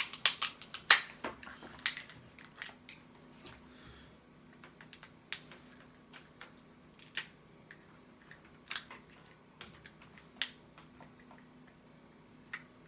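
Cooked shellfish shell cracking and snapping as it is broken apart by hand. A quick run of cracks comes in the first second or so, then single sharp snaps every second or two.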